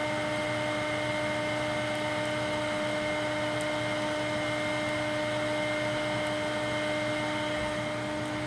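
Small electric air blower running steadily, feeding air into a pit forge: a constant motor whine over a low hum.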